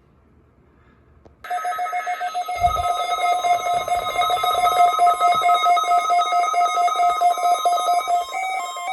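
Several NOAA weather radio receivers sounding their alert alarms together for a weekly test: a loud, rapid electronic beeping that starts about a second and a half in, with its pitch shifting near the end as the alarms overlap.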